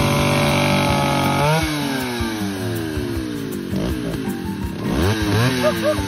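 Two-stroke chainsaw cutting into a felled tree trunk, held at steady high revs for the first second and a half, then its pitch repeatedly dropping and rising again as the throttle is eased and squeezed through the cut.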